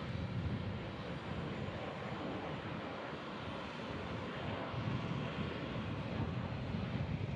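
Embraer E175 regional jet's twin turbofan engines at takeoff power as it lifts off and climbs out: a steady low rumble with a broad hiss.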